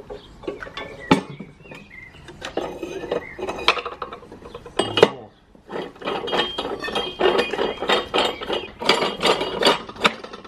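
Metal clanking and scraping from a manual tyre changer as its centre post and clamp cone are fitted to a steel spare wheel: sharp knocks in the first half, then a dense run of rattling and scraping from about six seconds in as the cone is worked down the post.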